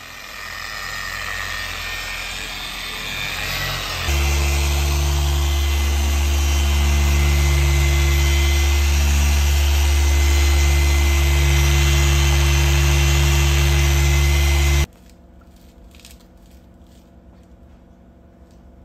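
Rupes BigFoot dual-action polisher running on car paint during a single-stage polish. About four seconds in it jumps to a louder, steady hum, and it stops suddenly near the end, leaving only faint rubbing as a microfibre towel wipes the panel.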